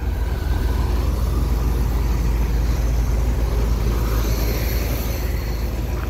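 1977 Chevrolet Corvette's small-block V8 running steadily just after a flooded cold start.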